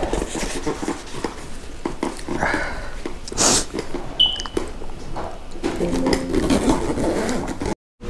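Handling noise from a hard-shell scooter bag being opened and felt inside: rustling, soft knocks and scrapes, with one louder hissy scrape about three and a half seconds in.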